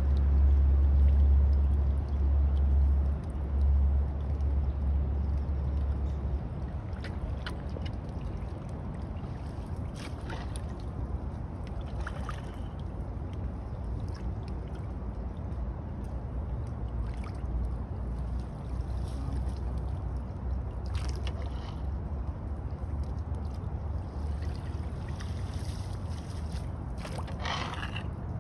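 Floodwater sloshing and gurgling as a wooden pole is jabbed into a clogged drain under leaf litter, with a few short splashes. A heavy low rumble fills the first six seconds.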